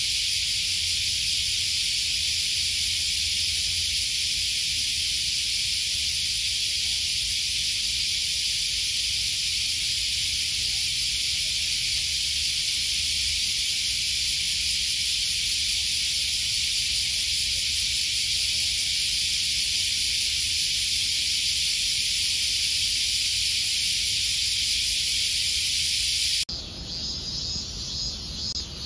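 Large brown cicadas (aburazemi) calling in chorus: a loud, steady, sizzling buzz with no pulse. Near the end it cuts abruptly to a quieter cicada recording.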